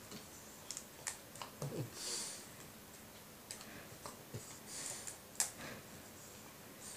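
French bulldog chewing and biting at dandelion stems held out to it: irregular wet crunching clicks, with a couple of short breathy sniffs through the nose.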